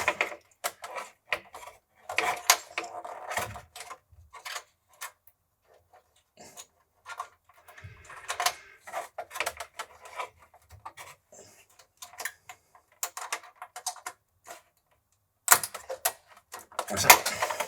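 Hands working a DIP chip into its socket on the circuit board, with the expansion board lifted and prised: irregular clicks, taps and scrapes of plastic and metal. The densest clusters come a couple of seconds in and again near the end.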